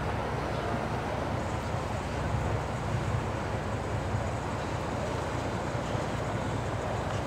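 Boat motors running steadily, a constant low rumble under an even wash of noise.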